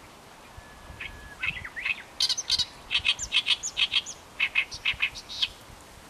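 A small songbird singing: a chattering run of quick chirps, about five a second, starting about a second in and stopping shortly before the end.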